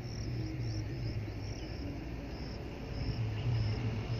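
An insect chirping in short, evenly spaced high pulses, a few each second, over a steady low rumble.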